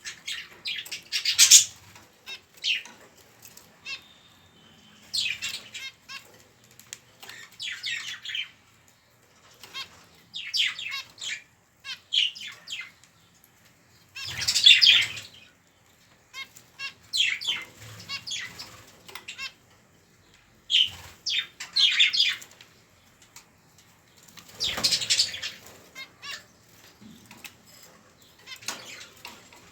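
Budgerigar chicks giving raspy, rapidly pulsed begging calls in repeated short bursts, the loudest about halfway through and again near the end.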